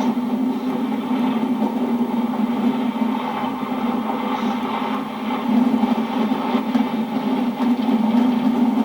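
Steady road and engine noise of a car driving along, heard from inside the cabin, with a constant low drone.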